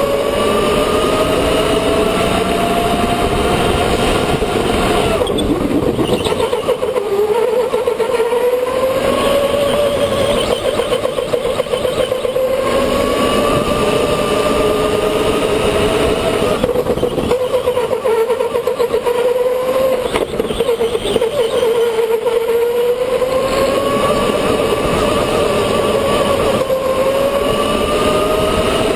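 Electric go-kart motor whining, its pitch rising as the kart speeds up and dropping as it slows, several times over, over a steady rushing noise.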